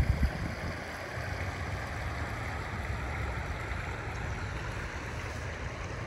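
Shallow river water babbling over stones at the bank, a steady rushing hiss. A brief gust of wind buffets the microphone at the very start.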